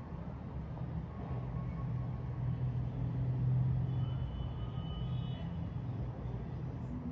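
City traffic hum: a steady low rumble of passing vehicles that swells about three to four seconds in and then eases back.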